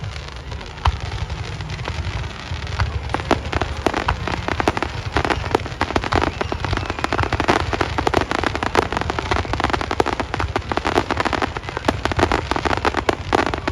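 Fireworks display: steady low rumbling with many sharp cracks and crackles, thickening into dense rapid crackling from about three seconds in.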